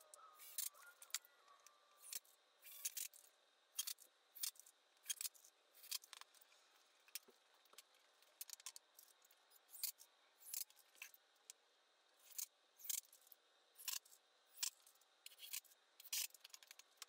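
A series of faint, sharp clicks, about two a second and not quite evenly spaced.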